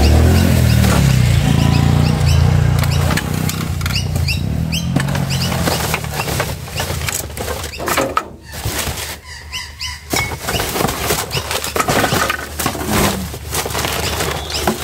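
A paper shopping bag and plastic rubbish rustling and crackling, with scattered clicks and knocks, as a grabber tool lifts the bag out of a metal dumpster. A low droning hum, like an engine, runs under the first few seconds and then fades.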